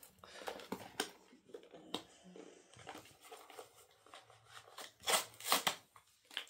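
Fingers picking at and peeling the plastic wrap off a trading card deck box: scattered small clicks and crinkles, with a louder run of tearing and crinkling about five seconds in.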